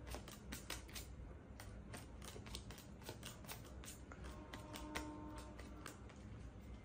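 A deck of playing cards being sorted through and handled by hand: a run of faint, quick clicks and flicks as cards are picked out and set down.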